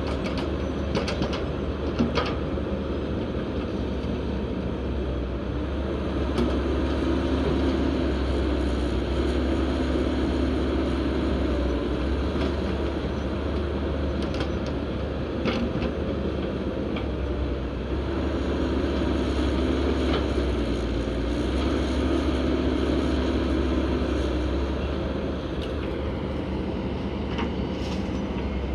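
Heavy truck engine running steadily, swelling and easing a little in level, with a few sharp clicks or knocks over it.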